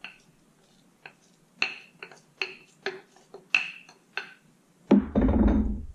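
A wooden tamper knocking against the inside of a glass quart jar as fish and vegetables are packed down: about ten uneven clinks with a short glassy ring. Near the end comes a louder knock, then a low rumbling handling noise.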